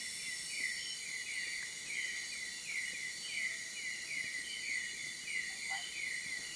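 Night-time tropical forest chorus: a steady high insect drone with a short falling chirp repeating evenly about three times a second.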